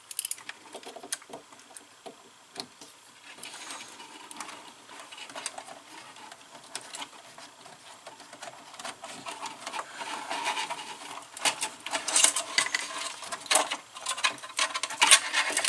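Hands handling and routing insulated wires inside an electrical control cabinet: irregular small clicks and rustles, busiest near the end, over a faint steady hum.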